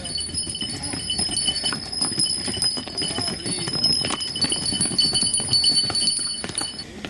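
Donkeys' hooves clopping on stone steps as they file close past, with bells on their tack jingling steadily. Loudest about four to six seconds in, and it cuts off abruptly near the end.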